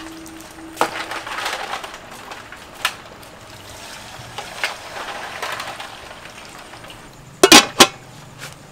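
Scattered knocks of pots and kitchenware, ending in a loud double metal clank as an aluminium pot lid is set on its pot.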